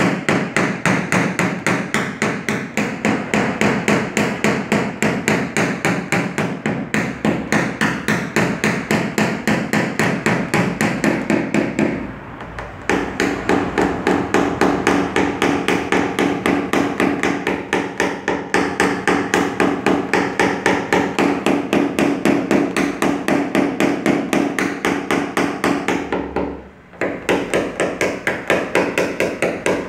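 Small hammer striking a tap-down punch held against a car roof panel in paintless dent repair, knocking down the metal around a dent. Quick, even taps, about four or five a second, with two brief pauses.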